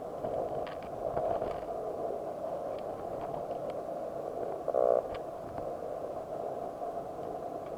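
Muffled underwater noise picked up by a camera submerged in the sea, with faint scattered clicks and a short buzzing tone about five seconds in.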